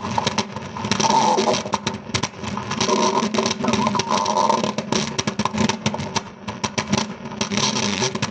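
Cartoon sound effect of stomachs growling: a long, rough, uneven growl that keeps going with many short breaks.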